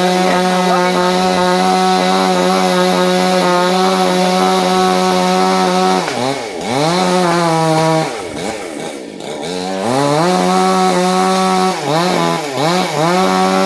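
Chainsaw engine running at a steady high speed for about six seconds. It then swoops down and up in pitch, drops back quieter for a couple of seconds, revs up again, and finishes with several quick throttle blips.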